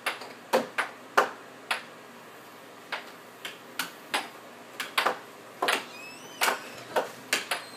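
Air hockey puck and mallets clacking in a fast rally: a dozen or more sharp, irregular clacks as the puck is struck and bounces off the table's rails.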